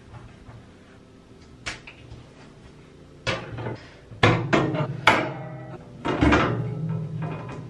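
Metal wire shower caddy knocked and clinked as it is hung on its wall fittings against tile: a small click early, then from about three seconds in several sharp clanks, each with a brief ringing trail.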